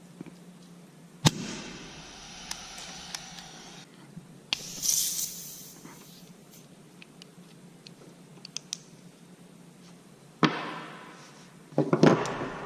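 Shots from the double-barrelled 2011 Dueler CO2 airsoft pistol. A sharp crack with a ringing tail comes about a second in, a short hiss of gas follows at around four and a half seconds, another crack comes near ten and a half seconds, and a quick cluster of cracks sounds near the end.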